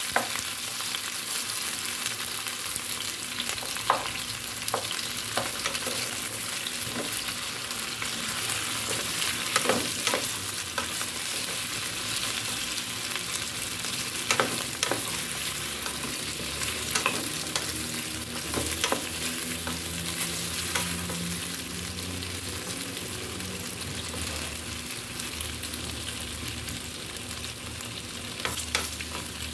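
Sliced potatoes sizzling in hot cooking oil in a pan, a steady hiss, while a spatula spreads and turns them, its scrapes and taps on the pan coming every few seconds.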